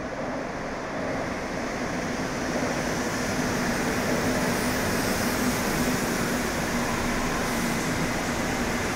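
Madrid Metro Line 1 train coming out of the tunnel and running into an underground station. Its running noise grows louder over the first few seconds as it reaches the platform, then holds steady, with a low hum underneath.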